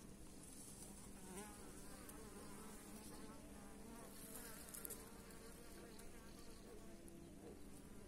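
Honeybees buzzing at a hive entrance, a faint steady hum.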